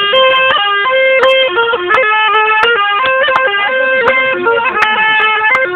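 A zurna-style melody: one loud, reedy, piercing tone holding notes and stepping quickly between them, with short ornamental flicks between notes.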